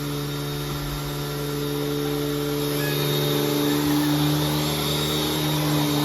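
Hoover Tempo U5140-900 upright vacuum cleaner running steadily with a constant motor hum and airflow noise, growing a little louder about halfway through.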